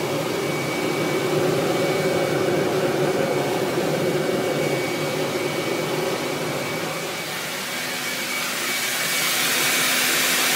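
Vacuum cleaner motor used as a blower, forcing air through a hose into the base of a rocket stove's burn chamber: a steady motor whine over rushing air. The high hiss grows stronger in the last couple of seconds.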